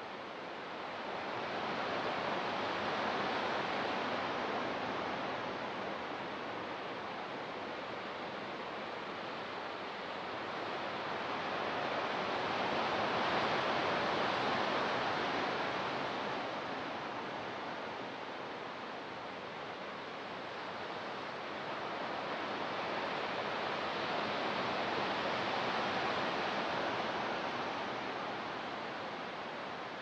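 Ocean surf washing into a sandy cove and breaking on rocks: a steady rush of water that swells and fades in three slow surges about ten seconds apart.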